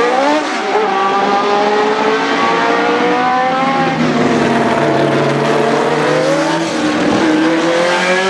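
Historic Formula 1 car engines at full racing revs, climbing in pitch through each gear and dropping at the upshifts. A second car's engine overlaps in the second half as it comes through close by.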